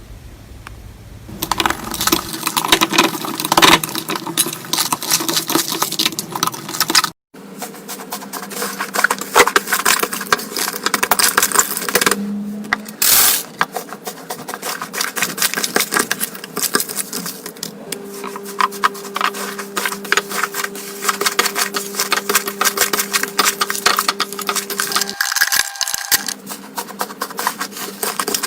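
Slime being squeezed and pressed by hand, giving dense runs of sharp, rapid crackling clicks and pops. The sound cuts off abruptly about seven seconds in and again near the end, then picks up again.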